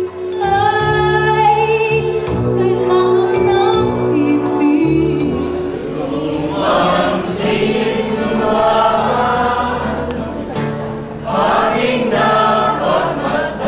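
A woman singing solo into a microphone over steady instrumental accompaniment; about six seconds in it gives way to a small choir singing together.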